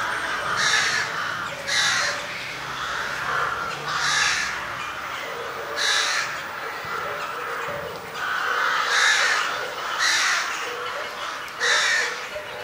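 A bird calling over and over: about seven short calls, each a second or two apart.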